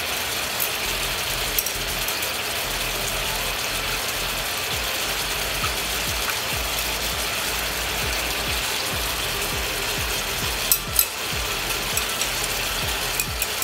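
Soy sauce and sugar sizzling and crackling steadily around cubes of tofu and luncheon meat in a hot cast-iron skillet. Two sharp clicks come about eleven seconds in.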